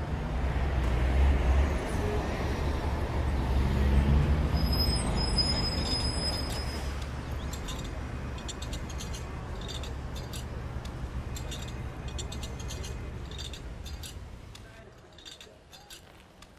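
Auto-rickshaw engine running close by with a low, steady rumble. It is loudest in the first half and fades away over the last few seconds.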